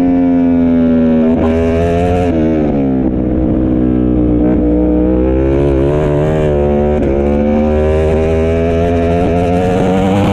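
Ducati Panigale V4 R World Superbike's V4 engine heard from onboard: high revs, then the pitch steps down with two short rises about a second and a half in as the bike slows into a corner. The revs stay low through the corner, then climb again as it accelerates out.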